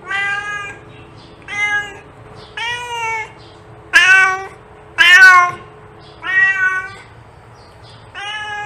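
A cat meowing over and over, about seven short meows spaced roughly a second apart, with a longer, drawn-out meow starting near the end.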